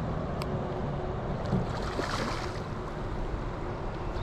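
River water rushing steadily past the bank, with wind rumbling on the microphone.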